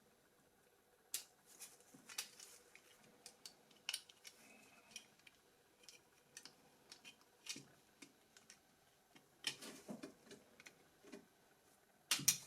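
Scattered small clicks, taps and scrapes of tools and plastic and metal parts being handled while a Nokia E71 phone is taken apart, with a busier stretch late on and the sharpest clicks near the end.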